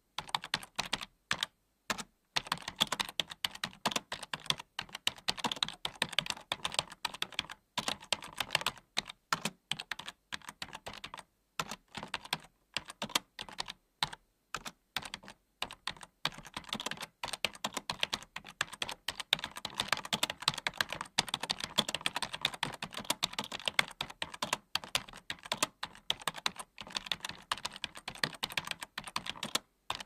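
Typing on a computer keyboard: fast, uneven runs of keystroke clicks with brief pauses every few seconds.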